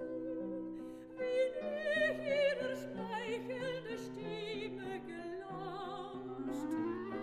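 Classical-style music: a melody with strong vibrato over a line of stepped low notes, and a tone gliding upward in pitch near the end.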